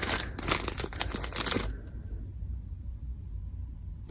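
Crinkling and rustling of plastic packaging as bead strands are handled, stopping abruptly about a second and a half in; after that only a low steady hum.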